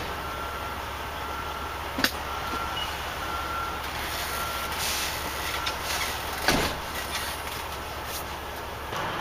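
Steady low hum of a truck engine idling, with a sharp knock about two seconds in and a louder knock past the middle. A faint high beep repeats in the background, and the hum drops away near the end.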